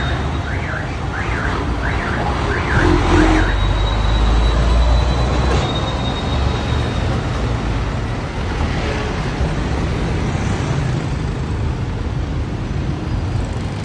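Semi-truck's diesel engine rumbling close by as the rig pulls across the road, loudest a few seconds in, over general street traffic. A quick series of short rising-and-falling chirps sounds over it during the first three seconds.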